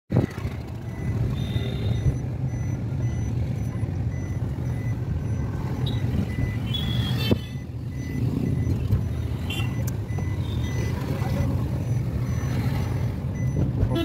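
Engine and road rumble heard inside a Suzuki car's cabin while it is driven through town traffic, with faint high beeps repeating in the background and a click about seven seconds in.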